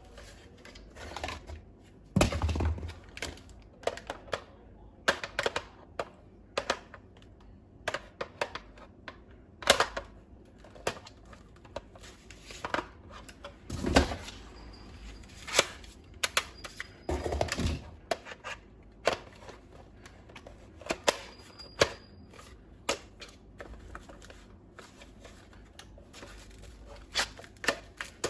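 Irregular plastic clicks and knocks from toy gun parts and packaging being handled, with a few heavier thunks.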